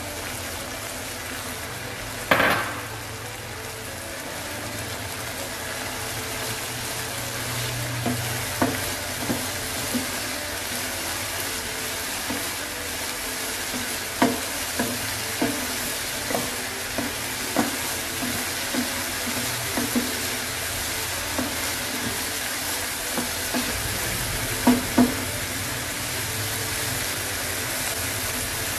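Corn kernels sizzling steadily in a hot frying pan. A loud clatter comes about two seconds in, then a spatula stirring and knocking against the pan again and again, with two sharp taps close together near the end.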